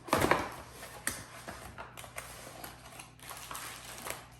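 Packaging and accessories being handled: a loud rustle and knock at the start, then scattered light clicks and rustles.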